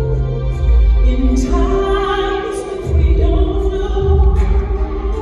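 Live singing over keyboard accompaniment, with long held vocal notes above a heavy, steady bass.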